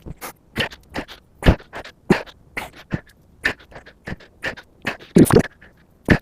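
Tire plug reamer being forced in and out of a puncture in the tread, short rasping strokes of steel through rubber roughly twice a second.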